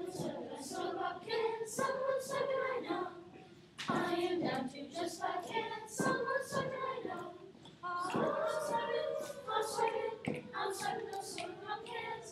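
Sixth-grade children's choir singing together in sustained phrases, with two brief breaks between phrases.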